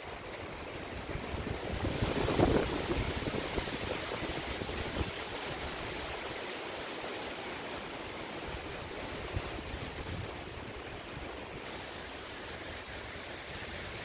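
Wind rushing through the tree canopy, the leaves rustling in a steady hiss that swells into a stronger gust about two seconds in. Wind on the microphone adds an irregular low buffeting.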